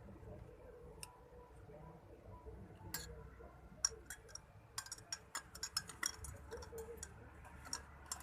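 A metal spoon clinking against the inside of a glass while stirring tea. The light, ringing clinks come irregularly, a few at first and then thick and fast from about halfway through.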